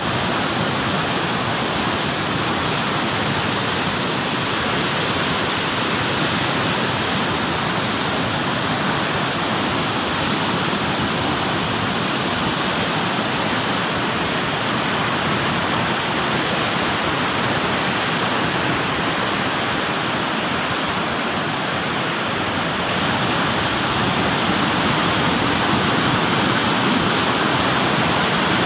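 Heavy floodwater pouring through the raised radial gates of a dam spillway: a loud, steady rush of churning water that does not let up.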